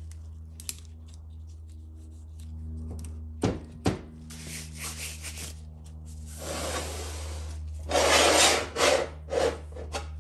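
Gloved hands handling metal automatic-transmission parts: two sharp clicks of metal parts touching, then several rough scraping, rubbing stretches as parts slide on the bench and shop towel, the loudest near the end. A steady low hum sits under it all.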